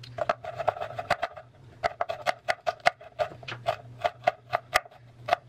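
Chef's knife slicing a shallot on a wooden cutting board: quick, even knife taps on the wood, about four a second, with a short pause about a second and a half in.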